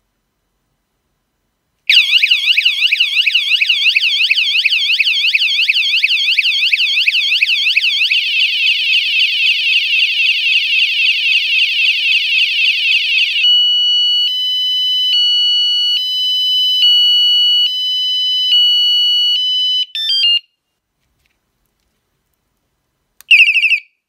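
Bicycle anti-theft alarm siren sounding loud: a warbling wail sweeping up and down, a faster warble, then an alternating two-tone beep, before cutting off suddenly. Near the end it gives one short chirp.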